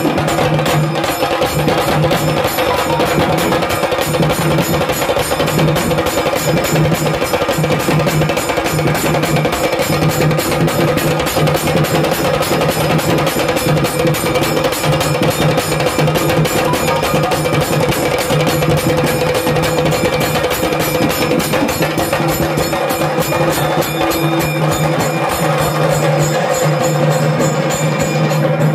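Temple procession music: fast, continuous drumming with sharp strokes over a steady held tone.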